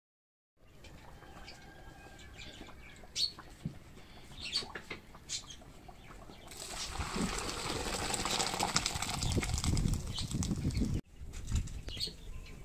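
A flock of birds flying overhead, wings flapping, with short sharp calls. In the second half a louder, steady rushing noise runs for a few seconds and stops at a cut.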